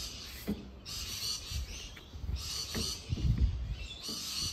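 Muffled knocks and rubbing as a mailbox is pushed into a cut-out in a hollow PVC fence panel, the loudest knocks about three seconds in.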